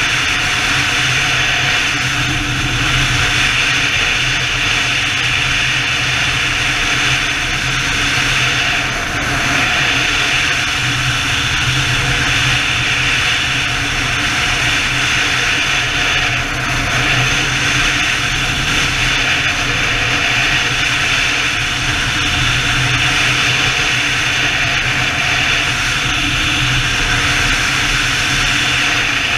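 Steady wind rush over the microphone with the drone of a BMW touring motorcycle's engine underneath, cruising at a constant highway speed.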